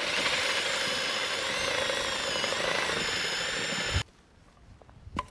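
Power drill spinning a spiral ice auger, boring through lake ice: a steady motor whine that sags in pitch a little under load, then stops abruptly about four seconds in. A few sharp knocks follow near the end.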